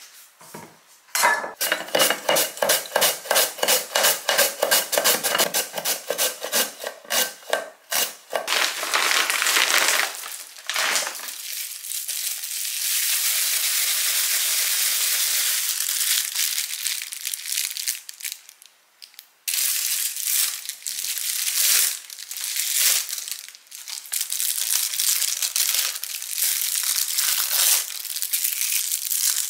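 Kitchen knife cutting cucumber on a wooden cutting board, quick even strokes about four a second for the first several seconds. Then a steady rustling hiss, and for the last third, irregular crinkling of the plastic film being peeled off imitation crab sticks.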